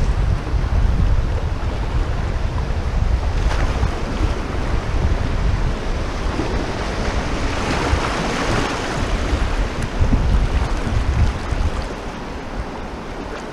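Fast river current rushing over a shallow riffle around a canoe, with wind buffeting the microphone. The rush of water swells about eight seconds in and eases near the end as the canoe reaches smoother water.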